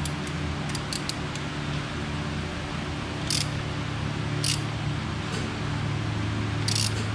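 Hand ratchet clicking in a few short bursts, about a second or more apart, as the new rear motor mount bolts of a Harley-Davidson Dyna are run in by hand. A steady low hum runs underneath.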